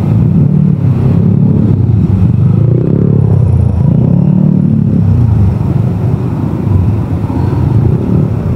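Street traffic close by: motorcycle and jeepney engines running and revving up and down.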